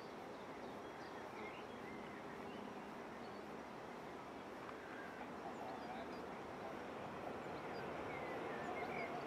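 Distant jet noise from a Boeing 737-800's CFM56 turbofans as the airliner rolls out after landing: a steady rush that grows a little louder near the end. Birds chirp briefly now and then over it.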